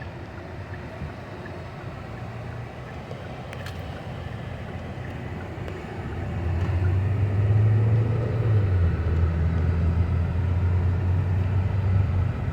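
Car engine and road noise inside the moving car, a steady low hum that grows clearly louder about halfway through and stays up.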